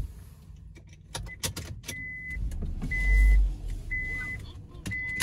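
A car's in-cabin warning chime beeping about once a second, each beep a steady high tone. Clicks and light knocks come before the beeping starts, and a low rumble near the middle is the loudest part.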